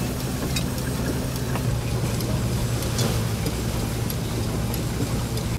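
1948 Ransomes threshing machine running steadily at work, a constant low mechanical hum with scattered light ticks and rattles.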